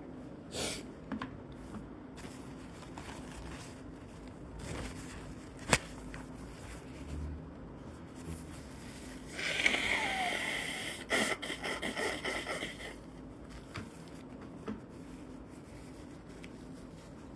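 A congested person sniffling: a short sniff near the start, a single sharp click around the middle, then a longer noisy nasal burst about ten seconds in followed by several short ones.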